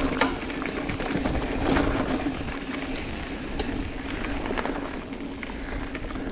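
Mountain bike rolling over a dirt and gravel trail: tyres crunching, the bike rattling with scattered sharp clicks of stones and parts, over a steady hum and a low rumble of wind on the microphone.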